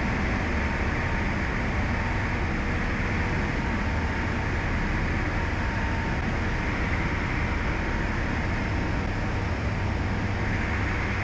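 Steady drone of a Breezer B600 light aircraft's piston engine and propeller in flight, heard in the cockpit, with a faint steady high tone over it.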